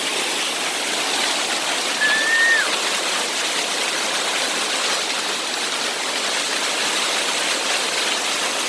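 Waterfall pouring steadily, an even rush of falling water. About two seconds in, a short high-pitched sound holds briefly and then drops in pitch.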